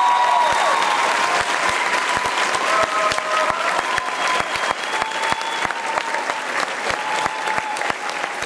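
Audience applauding: dense clapping, loudest at the start and easing slightly.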